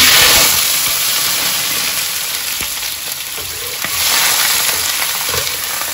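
Raw chicken pieces landing in a hot steel wok with a sudden loud sizzle, which carries on steadily as they are stirred, swelling again about four seconds in.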